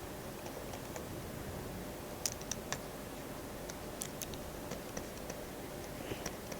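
Faint, scattered clicks and taps of a pen writing out an equation, a few in quick succession about two seconds in and again about four seconds in, over a low steady room hiss.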